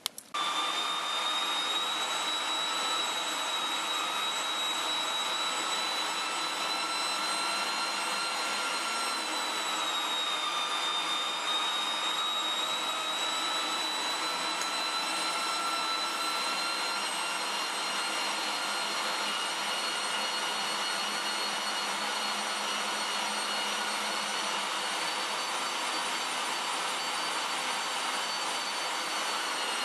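Electric meat grinder switched on and running steadily, mincing boiled pork hock and blanched pork liver with egg through its finest 3 mm plate. A steady motor whine that dips slightly in pitch about ten seconds in.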